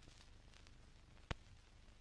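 Near silence: the faint hiss and crackle of an old film soundtrack, with one sharp click a little past halfway.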